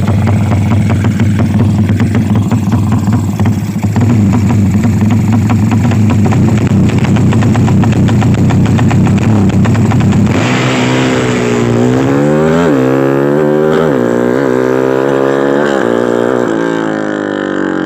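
Honda GL motorcycle's single-cylinder four-stroke engine running steadily and loud while warming up, then, about ten seconds in, revved in a series of short throttle blips, its pitch rising and falling again and again.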